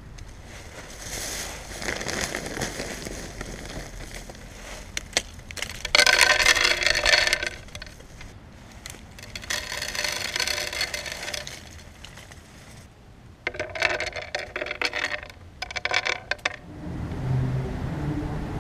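Handfuls of dried corn kernels and seeds dropped onto a wooden plank, clattering and rattling in several bursts, the loudest about six seconds in. Near the end a low steady hum comes in.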